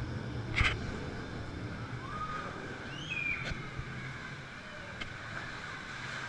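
Churning, rushing water of a river rapids ride around a round raft, running steadily, with a sharp knock about half a second in and a few short high squeals.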